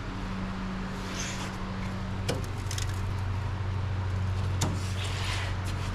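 A steady low machine hum, with a few light clicks and scrapes of a hand working over rusted sheet metal.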